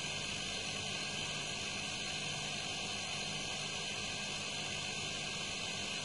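Hermetic refrigerator compressor running steadily, a low hum with an even hiss over it, as it pumps air into an R22 refrigerant cylinder with the pressure building toward 50 psi.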